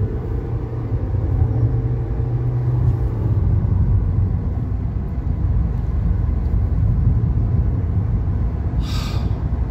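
Steady low rumble of road and engine noise inside a moving car's cabin, with a faint engine drone in the first few seconds. A short hiss comes near the end.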